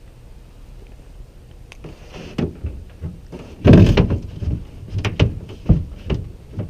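A run of knocks, thuds and scrapes as pieces are handled and set down in an aluminum jon boat, starting about two seconds in, with one heavy bang just before the middle and several sharp knocks after it.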